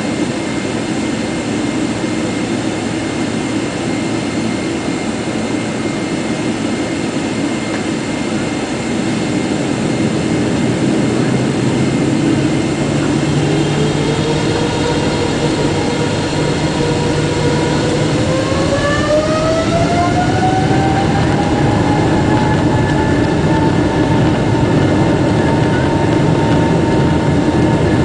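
General Electric GE90 turbofan of a Boeing 777-300ER heard from inside the cabin, spooling up to takeoff thrust. A steady low drone at first; about halfway through, a whine rises in pitch over several seconds, then levels off at a higher, steady pitch as the engine gets louder.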